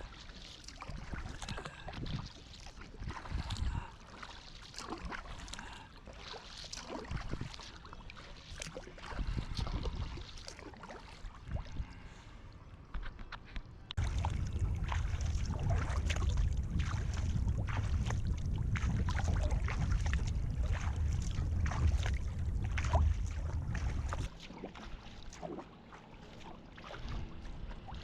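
Kayak paddle blades dipping and splashing in the water, with water lapping at the hull. For about ten seconds in the middle a louder low rumble sits under the splashing, starting and stopping abruptly.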